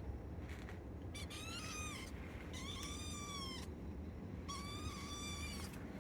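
Kitten meowing repeatedly: three drawn-out, high-pitched meows of about a second each, over a steady low hum.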